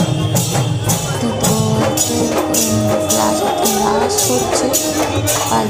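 Music with a steady beat of bright, hissy percussion strokes about twice a second under a melody.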